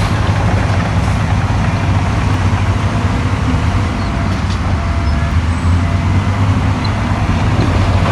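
Heavy earthmoving machine's diesel engine running steadily, a deep even drone with a noisy wash of mechanical sound over it.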